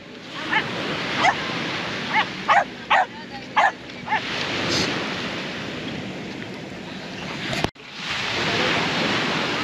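A dog barking in short sharp yips, about seven in the first four seconds, over steady surf and wind noise. The barking stops, and near the end only the surf and wind remain.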